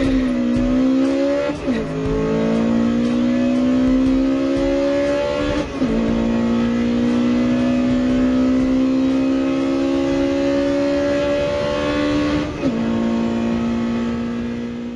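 Car engine accelerating through the gears. The revs climb steadily, then drop sharply at each upshift, three times in all. The sound cuts off abruptly at the end.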